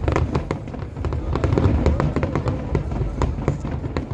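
Aerial fireworks display going off: a rapid string of sharp bangs and crackles over a continuous low booming rumble.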